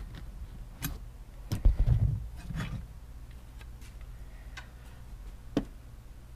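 Scattered clicks and knocks of a hand tool and metal bolts working on a dead pedal's steel bracket, with a heavier thump about a second and a half in.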